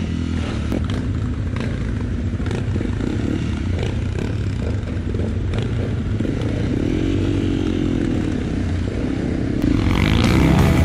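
Off-road motorcycle engine running under way, with scattered knocks and rattles; the engine note swells up and back down about seven seconds in. Near the end a louder, fuller sound comes in.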